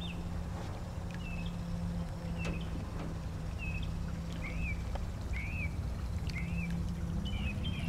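A bird calling with short, high chirps that rise and fall, repeated every second or so, over a low steady hum.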